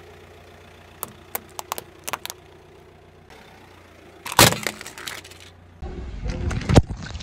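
Car engine idling as its tyre rolls over small objects: red plastic toy fence pieces snap in a quick series of sharp cracks about a second in, and a plastic toy ambulance breaks with one loud crunch past the middle. Then the tyre rumbles onto foil Capri Sun drink pouches, one bursting with a sharp pop near the end.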